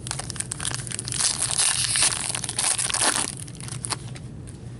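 Plastic wrapper of a trading-card pack crinkling as it is torn open and crumpled, a dense crackle lasting about three seconds, loudest in the middle, with a few last crinkles near the end.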